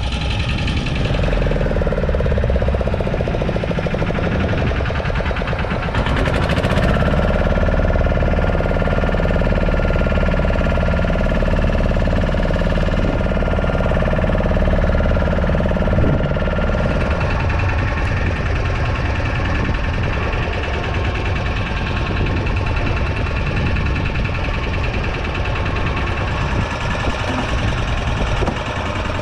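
Small fishing boat's engine running steadily with a knocking beat.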